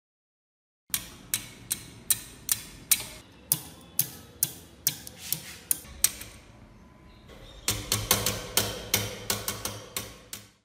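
Sharp metal-on-metal taps on an antique steel padlock held in a vise, at about two and a half a second. They stop for about a second and a half, then come back faster and closer together, about four a second, until near the end.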